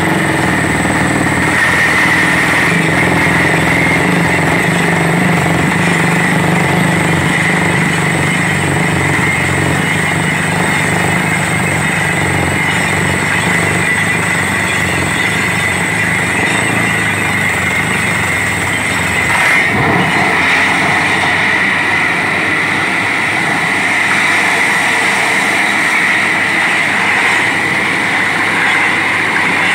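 Truck-mounted borewell drilling rig running loud and steady while it drills, its engine, compressor and turning drill string making a continuous din with a steady high-pitched whine over it. About two-thirds of the way through there is a brief knock and the low rumble drops away, while the high whine goes on.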